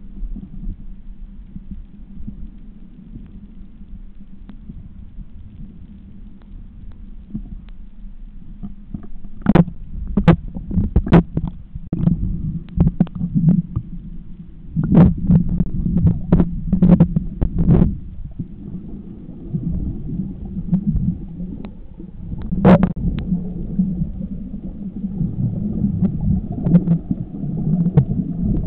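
Muffled underwater noise picked up by a submerged camera: a low, steady rumble of moving water, with a run of sharp clicks and knocks through the middle and one more a few seconds later.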